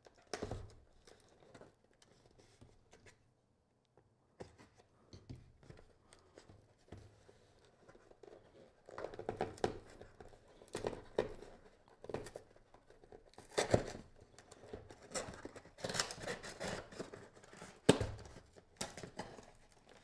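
Cardboard shipping box being pried and torn open by hand: rustling, scraping and tearing of cardboard and paper, with short sharp snaps. Sparse at first, then busier and louder handling in the second half.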